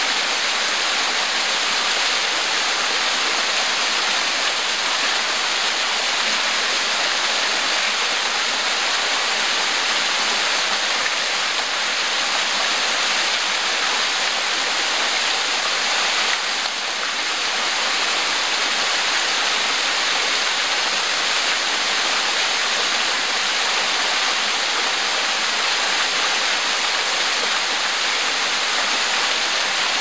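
Small waterfall pouring down a dark rock face into a shallow pool: a steady, hissing splash of falling water with little low rumble.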